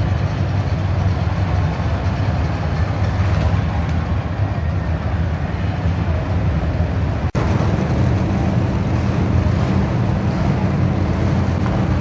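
Steady, loud motor-vehicle rumble of engine and road noise, with a brief break about seven seconds in.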